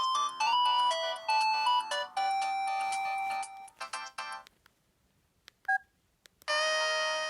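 LG GM205 mobile phone's speaker playing a preloaded polyphonic ringtone, a quick synthetic melody that fades out about halfway through. After a short pause and a brief beep, the next ringtone starts near the end with sustained chords.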